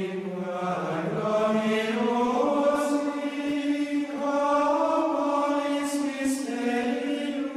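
Gregorian-style plainchant sung in unison by a choir: slow, long-held notes that step and glide gently in pitch without a break.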